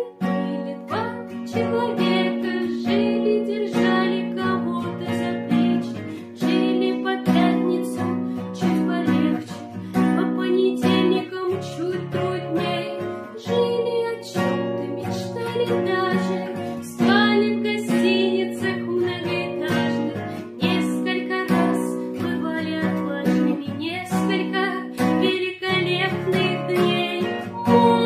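Acoustic guitar music, strummed and plucked chords accompanying a song.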